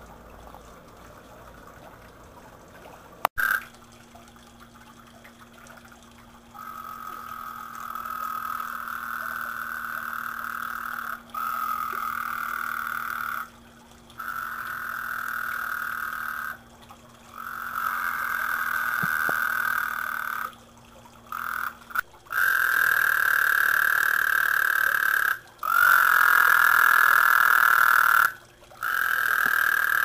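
Water trickling over a small pond waterfall, then, after a sudden click, toads calling: long, steady trills of several seconds each, one after another with short gaps, loudest near the end.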